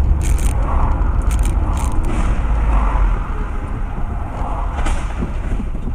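Road noise of a car driving in city traffic, heard from inside the car: a steady low rumble of engine and tyres, with a few brief clicks in the first two seconds.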